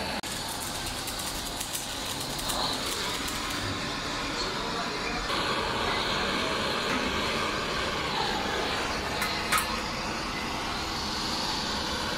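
Gas torch running steadily while a truck radiator's header plate is heated for soldering, with scattered light clicks over steady workshop noise.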